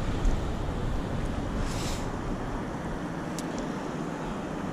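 Steady rush of river water, with some wind on the microphone and a brief hiss about two seconds in.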